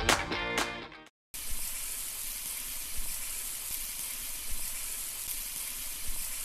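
Electronic music fades out within the first second. After a short gap, a steady, even sizzling hiss runs on to the end.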